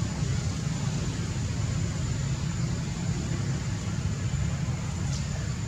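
Steady outdoor background noise: a low rumble with an even hiss over it and a thin, steady high whine.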